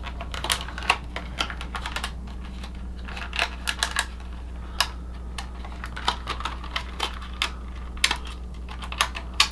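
Clear plastic blister tray of a boxed action figure crackling and clicking as it is handled and its twist ties are worked loose: irregular sharp clicks, a dozen or so, with no regular rhythm.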